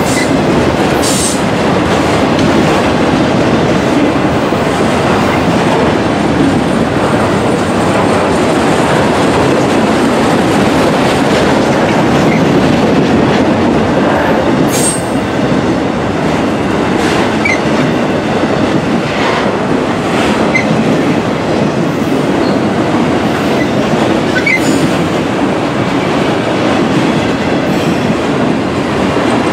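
Freight train of enclosed autorack cars rolling past close by: a steady rumble of steel wheels on the rails, with a few brief high squeaks now and then.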